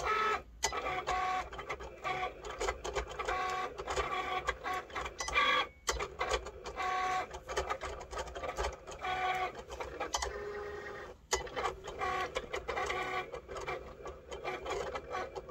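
Cricut cutting machine running as it cuts heat-transfer vinyl: its motors whine as the blade carriage slides across and the rollers feed the mat back and forth, the pitch changing with each move. There are a few short breaks.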